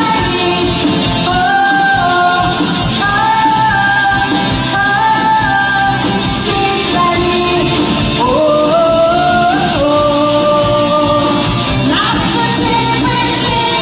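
A singer and a rock band performing a song, the vocal line held over a full steady accompaniment, with a sliding rise in the melody about eight seconds in.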